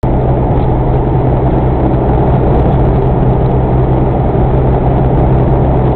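Steady road and engine noise inside a moving car on a highway: a constant low hum under an even rush, with no sudden sounds.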